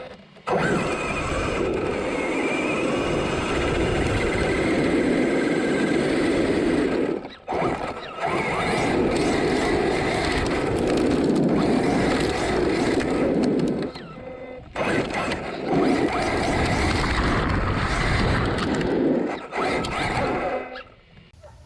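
Arrma Kraton 8S electric RC truck driving at speed, heard from a camera mounted on the truck: a loud rumble of tyres, drivetrain and wind with a wavering motor whine above it. The sound drops off sharply three times, about seven seconds apart, then picks up again.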